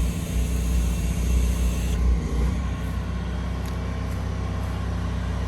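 A vehicle engine running with a steady low drone. A higher hiss over it drops away about two seconds in.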